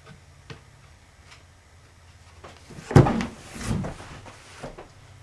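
Skateboard deck set down on a wooden-topped table with a sharp thump about three seconds in, followed by a softer second bump and small handling knocks.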